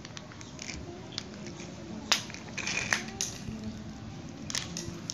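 Small plastic toys clicking and tapping against a glazed ceramic tile floor: a sharp click about two seconds in, a quick run of taps just after, and a couple more near the end.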